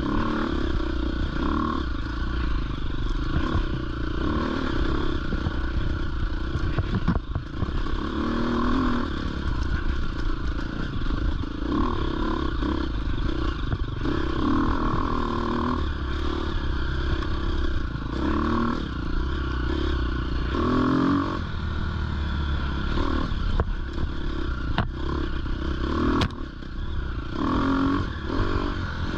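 Dirt bike engine running under load on a rocky trail climb, its revs rising and falling with the throttle, with a couple of sharp knocks near the end.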